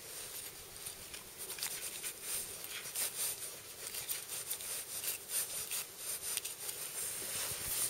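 Hunting knife cutting into a deer's hindquarter: irregular scraping, rubbing and tearing of hide, fur and meat as gloved hands work the carcass.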